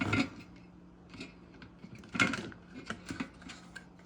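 Short plastic clicks and clatters of a dishwasher control circuit board being worked free of its plastic retaining tabs: a few separate clatters, the loudest about two seconds in.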